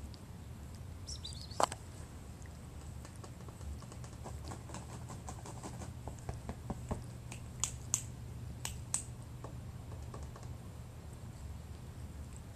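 A Persian cat grooming, licking its paw: a run of small, irregular clicks and ticks from its tongue, with one sharper click near the start and the most clicks in the middle.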